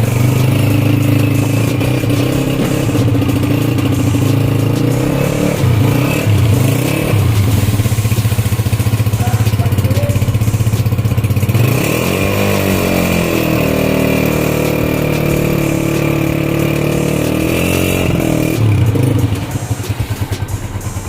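Brand-new Honda CG125's single-cylinder four-stroke engine running at a steady idle, with two short blips of the throttle. About twelve seconds in it is revved up and held at higher revs for several seconds, then drops back to a quieter idle near the end.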